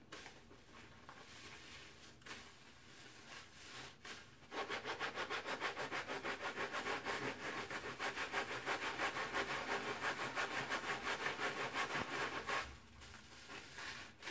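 Soapy kitchen sponges squished in hands in a basin of foam. At first there is soft, irregular squishing. Then, from about four and a half seconds in, a fast, steady rhythm of about five wet squeezes a second sets in, and it stops a couple of seconds before the end.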